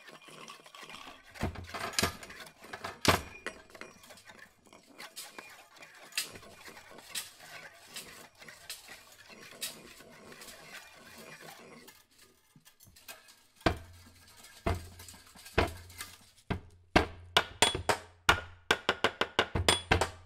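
Improvised percussion on found objects: scattered light clicks and clinks, then in the last third hands knocking and slapping on a wooden surface with a low thud. The knocks come faster and louder, several a second, near the end.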